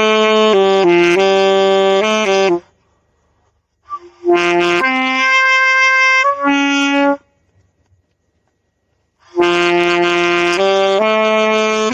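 A beginner practising the saxophone, playing held notes in short phrases. Twice the playing breaks off for about two seconds. The middle phrase is higher and thinner.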